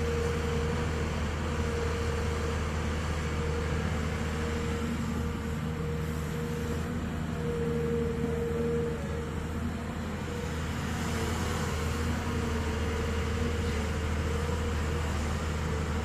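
Hyundai 215L excavator's diesel engine running steadily, a constant low hum with a steady whine above it that grows stronger for a moment about eight seconds in.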